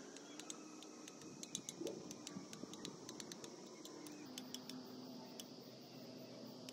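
Faint, irregular light clicks and ticks, about three a second, over a steady high hiss.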